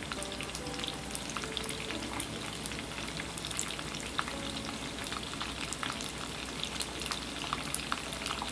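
Olive oil sizzling with scattered irregular crackles in a small pan of celery ajillo, the raw celery, chicken and king oyster mushrooms just starting to cook in it. Faint piano music underneath.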